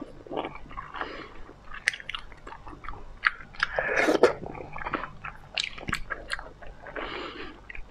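Close-miked chewing and biting of slippery, freshly prepared seafood, with many small wet clicks and smacks of the mouth and a few breathy sucking sounds.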